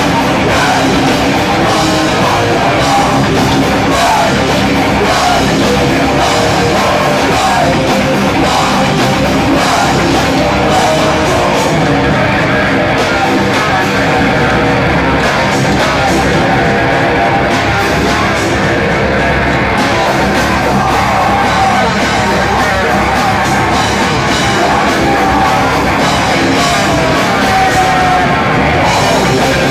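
A live rock band playing loudly: electric guitar, bass guitar and drum kit, with a singer's voice over them through a microphone.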